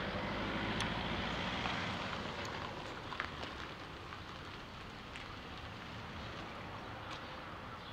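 A car driving slowly past at low speed, its engine and tyre noise fading as it moves away.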